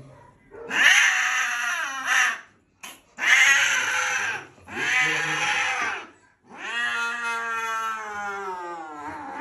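Angry domestic cat yowling loudly while restrained and handled: four long, drawn-out caterwauls, the last the longest and sliding down in pitch as it ends.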